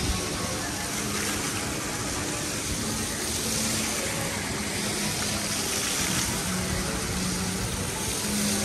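City-centre street ambience: a steady rushing noise with faint sustained musical notes underneath.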